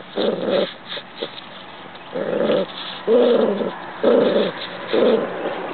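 Dog growling at a fiddler crab in a series of short growls, about five of them, roughly one a second.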